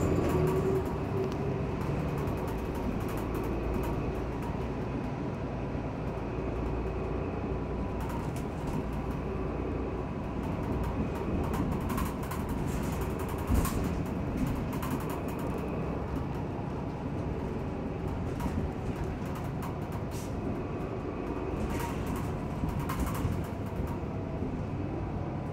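Cabin noise of a city transit bus: the engine runs steadily under a constant rumble, with light rattles and one sharper knock about halfway through.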